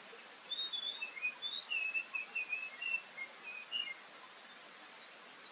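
Oriental magpie-robin singing one phrase of short, clear, varied whistled notes, starting about half a second in and stopping about four seconds in, over a steady faint hiss.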